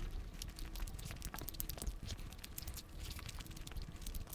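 Faint, close-miked chewing of a soft chicken taco: many small, irregular wet mouth clicks.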